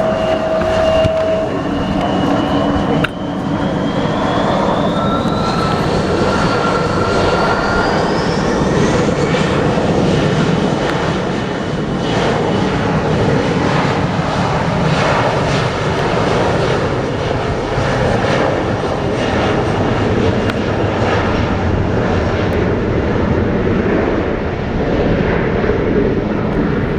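Airplane engines running loud and steady, with a thin whine that climbs in pitch over several seconds early on, under a dense rushing roar.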